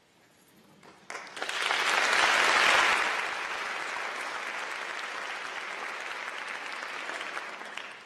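Audience applauding, starting about a second in, loudest shortly after, then steady and tapering off near the end.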